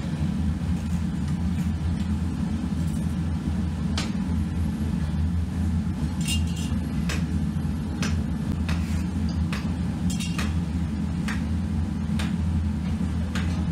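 A steady low rumble runs underneath. Over it come scattered short scrapes and clicks of a small steel tool cutting a channel into packed moulding sand.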